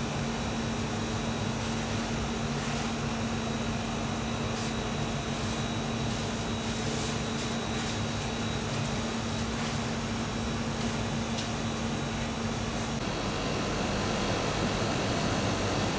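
Steady whirring hum of workroom machinery and ventilation, with a faint high whine. About three seconds before the end the low hum drops out and a slightly louder rushing noise takes over.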